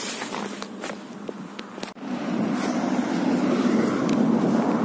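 Outdoor street noise: a few light clicks, then a brief dropout about two seconds in, after which a louder steady noise sets in.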